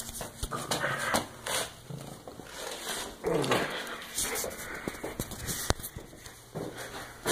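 Close knocks, scrapes and rubbing on a phone's microphone as a cat paws and clambers at it, with a short falling animal cry about three seconds in.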